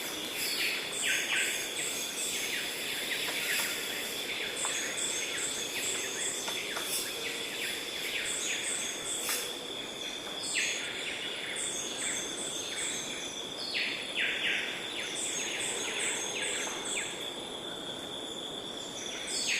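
Outdoor nature ambience: a steady, high insect drone with small birds chirping in quick clusters that recur every few seconds.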